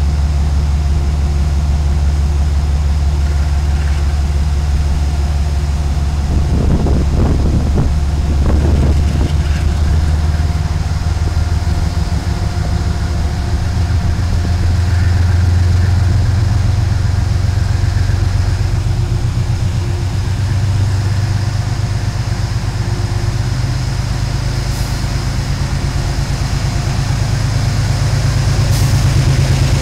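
GE P32AC-DM diesel locomotive's engine running with a steady low drone. About twelve seconds in its pitch steps up as the engine throttles up, and stays there. A short burst of louder noise comes about seven to nine seconds in.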